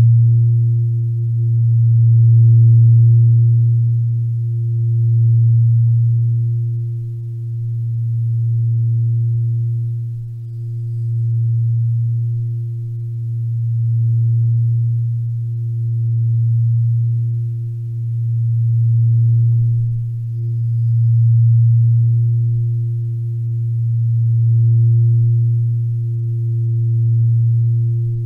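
A low sustained drone of relaxation background audio, a single deep humming tone that swells and fades about every three seconds.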